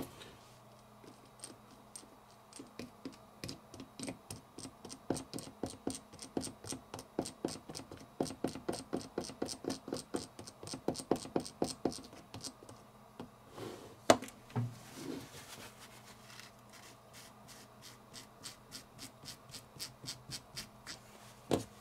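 The geared mechanism of an opened Daiwa Steez SV TWS baitcasting reel is turned by hand after greasing the pinion and main gear, giving a steady run of sharp clicks at about four a second. One louder click comes about two thirds of the way in, and a fainter run of clicks follows near the end.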